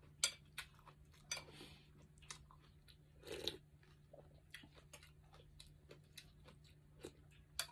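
Close-up eating sounds: chewing and biting with sharp crunchy clicks, and a short slurp of noodle soup from a spoon about three seconds in, over a faint steady low hum.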